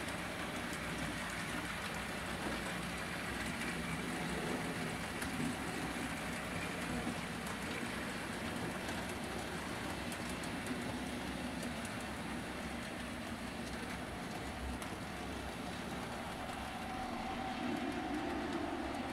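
HO scale model train running along the layout's track, a steady rolling noise of its wheels on the rails.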